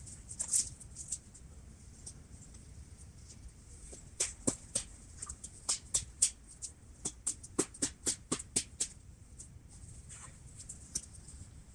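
A fallen log being worked with an orange-handled hand tool: a run of irregular sharp knocks and cracks, two or three a second, from about four to nine seconds in.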